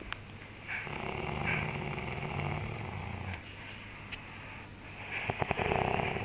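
A man snoring in his sleep: a long, low, rumbling snore, then a louder rattling snore about five seconds in.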